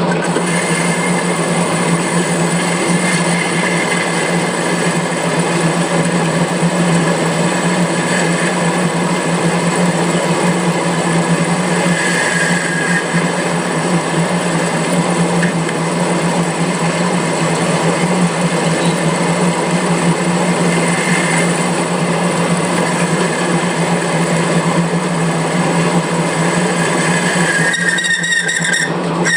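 Metal lathe running steadily while a form tool cuts an A-type V-groove into a spinning pulley: a constant machine hum with the dense noise of the cut over it.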